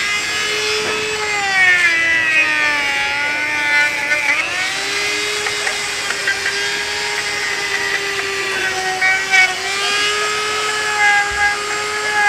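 Corded handheld rotary carving tool cutting detail into a wooden sculpture, a high-pitched motor whine that sags in pitch and recovers a few times as the bit is worked into the wood.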